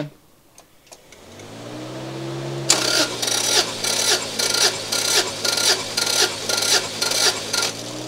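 Subaru GC8 STI's flat-four engine being cranked over by the starter for a compression test, with the spark plugs out and the fuel system disabled. A whine rises from about a second in, then the rotations beat evenly at about two and a half a second for some five seconds before stopping near the end.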